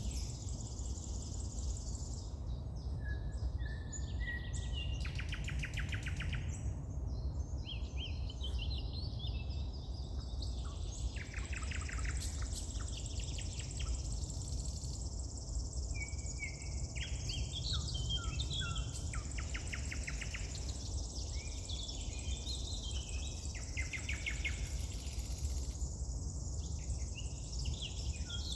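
Several songbirds singing, one short trilled or whistled phrase after another, often overlapping. Underneath runs a steady high hiss and a low rumble.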